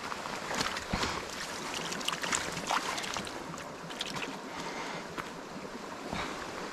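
Small mountain brook running over rocks: a steady rush of water, with scattered short ticks.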